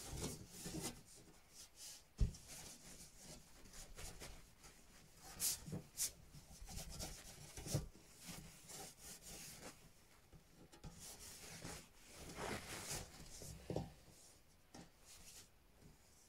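Cloth wiping and polishing mirror glass in irregular strokes, with one sharp knock about two seconds in.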